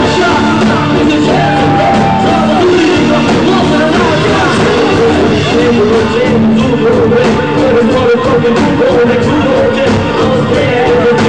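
Live rock band playing loudly with a woman singing: vocals over keyboard, guitar and drums, with cymbal hits coming through more in the second half.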